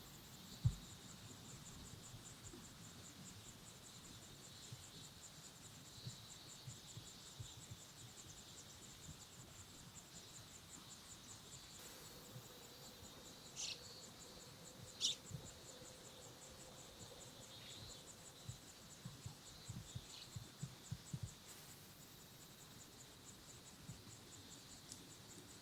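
A singing insect trills faintly and steadily in the background: a high, fast-pulsed chirring that does not let up. Two short, sharp high sounds come near the middle, and faint low knocks fall here and there.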